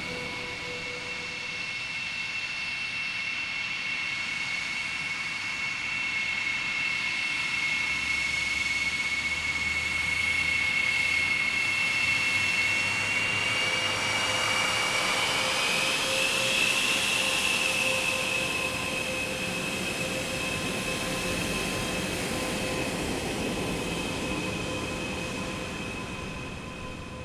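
A Su-35S fighter's twin AL-41F1S turbofans running at taxi power: a steady high turbine whine over a jet rush. The whine rises a little in pitch and loudness about halfway through as the throttle comes up, then settles, and the sound grows fainter near the end.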